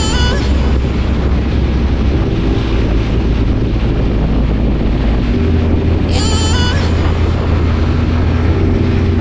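Motorcycle riding at speed with wind rushing over the microphone, under background music with a deep held bass line and a short repeated chirping riff twice.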